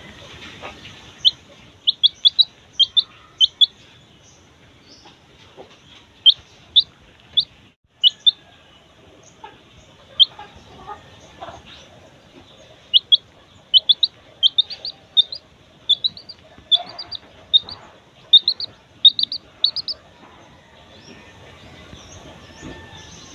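Six-day-old chicken chick peeping: short, high, upward-sliding peeps, some single and some in quick runs of three to six, with a pause near the middle and another near the end.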